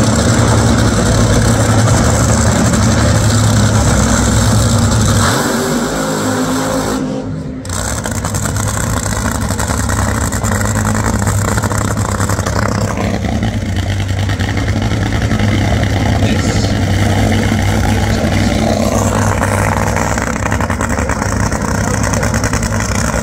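Top Fuel dragster's supercharged, nitromethane-burning V8 running loud and steady at idle, with a brief dip about seven seconds in.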